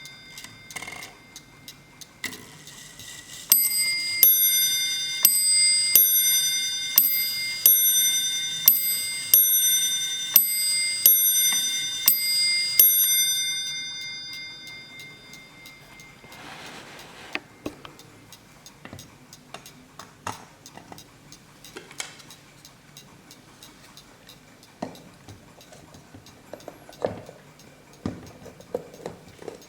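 Hermle mantel clock striking on its bells: about ten strokes roughly a second apart, each ringing on, fading out after the last. The clock ticks steadily underneath.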